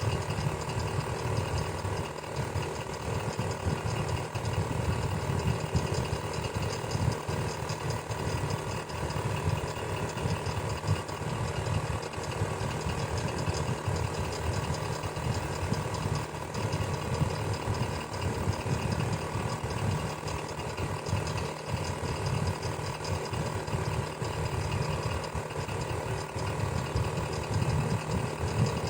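Electric fan running steadily: a continuous motor whir and blade rush, heaviest in the low range, with a fine fluttering texture and no change throughout.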